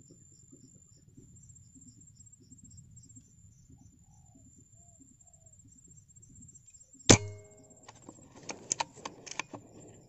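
A single sharp gunshot from a hunting gun about seven seconds in, with a short ring after it and then a few smaller clicks and rattles. A steady high drone of crickets or cicadas runs underneath.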